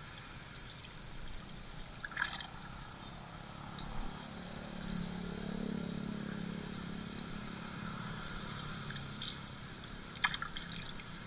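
Water splashing and dripping as a hand net is scooped through shallow muddy pond water, with sharp splashes about two seconds in and again near the end. A low steady hum swells through the middle.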